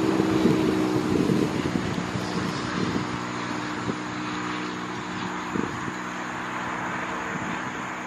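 A Bombardier Dash 8-200's twin Pratt & Whitney PW123 turboprops at takeoff power, a steady drone of propeller tones over engine roar. Wind buffets the microphone in the first second or so.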